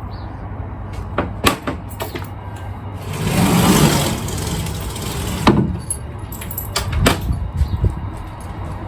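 A canvas boat-canopy door being handled shut: fabric rustling, loudest for about a second and a half in the middle, with several sharp clicks and knocks over a steady low rumble.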